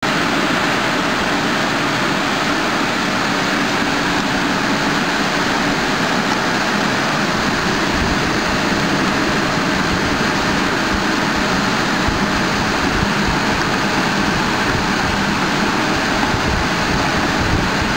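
Rotary mineral water filling and capping machine running, with bottles moving along its conveyor: a steady, even mechanical din.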